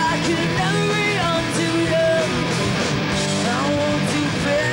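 Punk rock band playing live: distorted electric guitars, bass and drums, with a woman singing.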